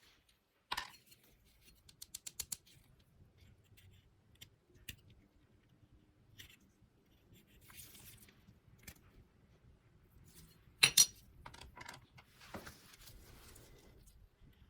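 Scattered light clicks and taps of small hard objects being handled, with a quick run of about eight clicks a couple of seconds in and a sharp double click near the end. Soft rustling comes in twice.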